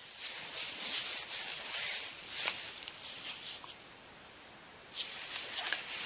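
Rustling of pure-silk fabric being handled, a soft hissing swish with small crackles. It eases off about four seconds in and picks up again near the end.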